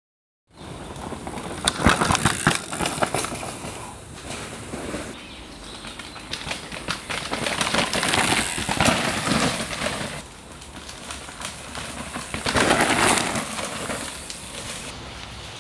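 A downhill mountain bike riding a rough dirt forest trail: tyres scrubbing through soil, and the frame, chain and suspension rattling with many clicks and knocks. The sound swells loudly several times as the bike passes close by.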